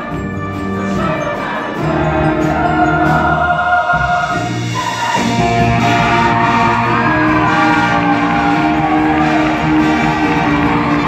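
Show choir singing a pop song in full voice over instrumental accompaniment, with long held chords that fill out after a brief dip about four seconds in.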